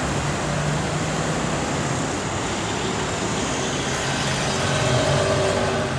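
Street traffic: cars driving past close by, a steady mix of tyre and engine noise with a low hum, a little louder near the end as another vehicle comes by.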